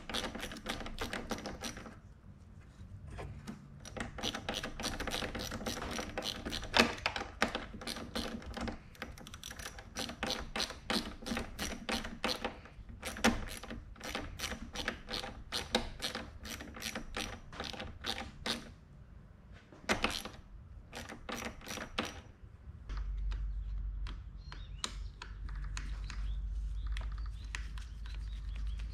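Small hand ratchet clicking in quick runs of many clicks a second, with short pauses between strokes, while tightening the brake reservoir's mounting hardware. The clicking thins out about three-quarters of the way through, and a low steady hum comes in.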